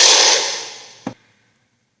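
Harsh, rasping roar from a dragon sound effect, fading away over about a second, followed by a short knock and then silence.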